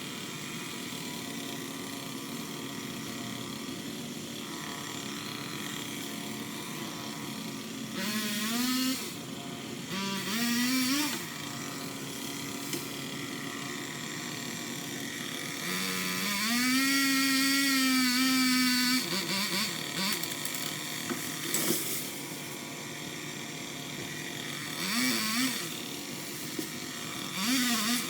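Electric power limb cutter (pole chainsaw) spinning up in five bursts, its motor pitch rising quickly and then holding. The longest burst lasts about three seconds, as it cuts through a limb. A steady mechanical hum runs underneath.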